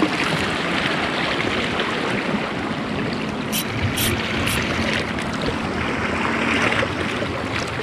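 Small waves lapping and splashing against shoreline rocks, a steady wash of water. A few short sharp ticks come about halfway through.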